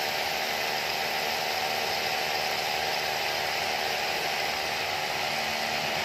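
Electric drill with a 14 mm bit boring upward into the ceiling to take an 8 mm anchor fastener. It runs steadily under load at an even pitch.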